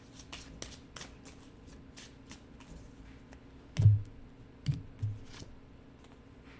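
Tarot cards being shuffled by hand: a quick run of light card snaps and flicks. About four seconds in there is a dull thump on the table, the loudest sound, followed by two lighter knocks as the deck is set down and handled.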